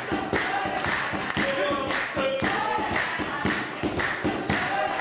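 A group of voices singing together over a fast, steady beat of thumps and hand claps.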